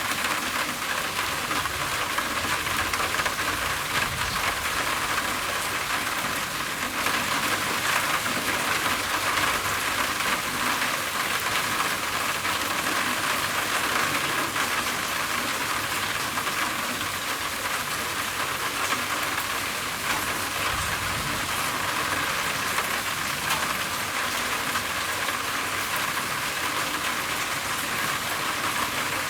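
Steady rain on a roof: a dense, even patter of drops.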